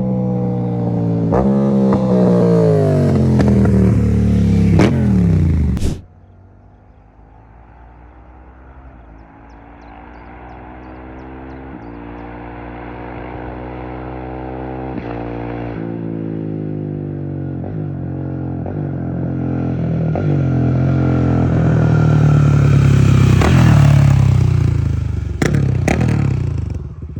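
Motorcycle engine accelerating hard, its pitch rising and dropping back several times as it shifts up through the gears. After a sudden cut about six seconds in, a quieter motorcycle engine builds up steadily in loudness through a series of gear changes.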